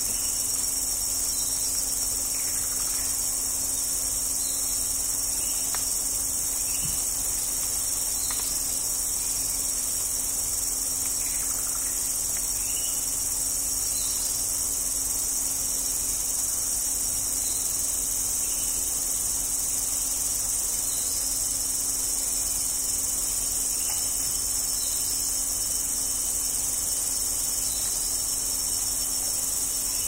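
Steady high-pitched drone of an insect chorus, with a faint low hum beneath it and a few faint bird calls.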